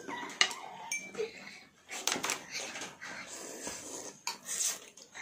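Ramen noodles being slurped, with a few sharp clicks of chopsticks and utensils against the bowl and dishes.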